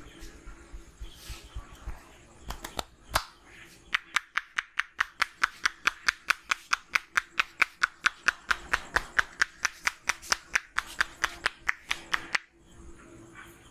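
Barber's percussive hand massage: fast, even slaps of the hands, about five a second, stopping suddenly near the end. A few scattered, louder slaps come before the fast run starts.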